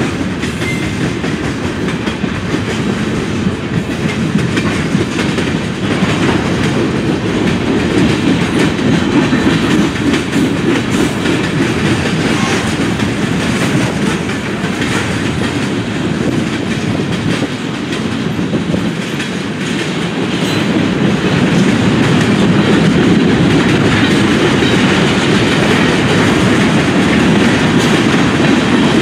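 Freight cars of a mixed manifest train rolling past: a steady rumble of steel wheels on rail with a run of clicks as the wheels pass over the rail joints, growing a little louder about two-thirds of the way through.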